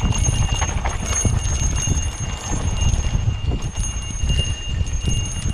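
Mountain bike rolling over a rough trail, its frame and chain rattling in quick irregular knocks, with wind rumble on the microphone and a high ringing that comes and goes.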